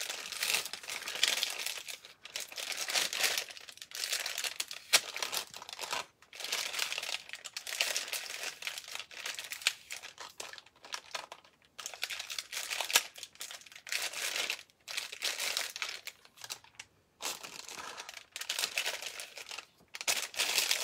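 Clear plastic piping bag crinkling in irregular bursts with short pauses as it is handled and filled with spackling paste, scooped in with a wooden popsicle stick.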